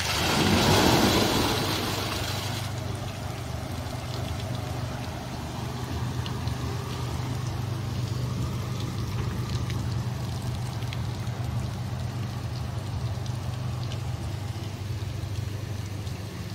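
Kinetic bucket fountain: a tipping bucket dumps its water into the pool below with a loud splash lasting about two and a half seconds, then water keeps splashing and trickling steadily over a constant low hum.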